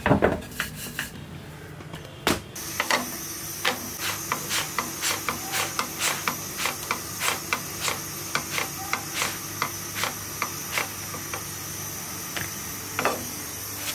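A few knocks of roti dough being rolled on a wooden board. Then, from about two and a half seconds in, the steady hiss of a gas cooker burner under a small nonstick pan, with frequent light ticks and crackles as a roti cooks and is pressed down with a cloth.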